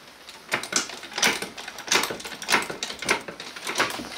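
Car jack being worked by hand: a series of sharp metal clacks, about one every two-thirds of a second.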